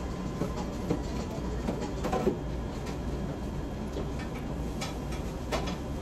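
A person chewing a burrito, with a few short clicks and rustles from eating and from handling it, over a steady low background hum.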